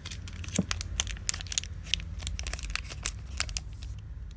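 Foil wrapper of a Pokémon trading card booster pack crinkling and tearing as it is opened, with many sharp, irregular crackles.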